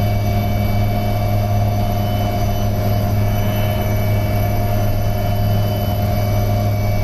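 HAL Dhruv Advanced Light Helicopter's twin turboshaft engines and rotors running in a low hover. It is a loud, even drone with a deep hum and several steady whining tones above it.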